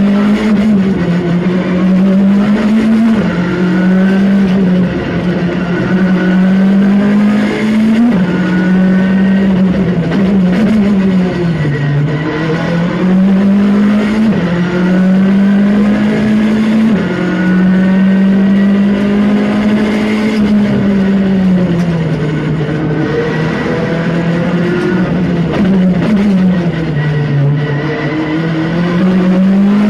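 Skoda Fabia R5 rally car's turbocharged four-cylinder engine driven hard, heard from inside the cockpit: the engine note climbs steadily and drops sharply again and again as the car accelerates, shifts gear and slows for corners.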